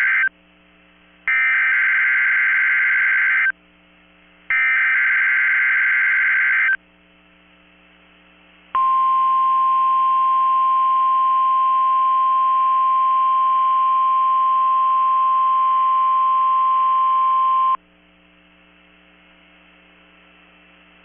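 Emergency Alert System SAME header on NOAA Weather Radio station KEC65: the tail of one digital data burst, then two more buzzing data bursts of about two seconds each, a second apart. About nine seconds in, the steady weather radio warning alarm tone (the 1050 Hz tone) sounds for about nine seconds and cuts off suddenly, the alert signals of a Required Weekly Test.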